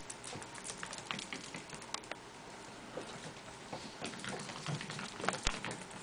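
Chihuahuas' paws pattering as they scamper, with claws clicking on a hard floor: many light, quick ticks, and a couple of sharper knocks.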